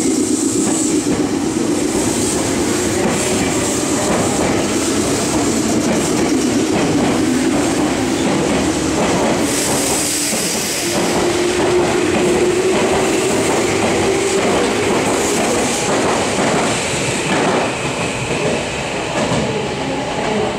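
Meitetsu 6500 series electric train, two sets coupled, moving out along the platform: a motor hum that climbs slowly in pitch in the second half as it gathers speed, over the clatter of wheels on the rails.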